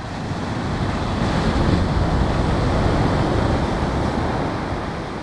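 Ocean surf: a wave washing up the beach, swelling to a peak about two seconds in and then easing off, with wind buffeting the microphone.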